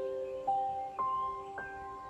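Background music: a bell-like mallet instrument such as a glockenspiel playing a slow rising run of single notes, about two a second, each note ringing on under the next.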